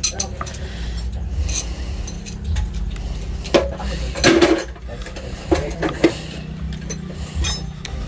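Metal wrenches and sockets clinking and clattering against each other and on the engine, with a few sharper clinks around the middle, over a steady low engine hum.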